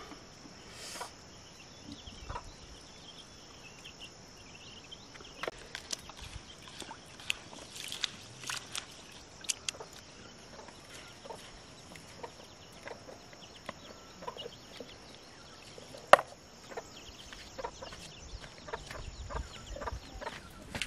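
Chickens clucking now and then, with a steady faint high hiss and scattered short sharp sounds. One much louder sharp knock comes about sixteen seconds in.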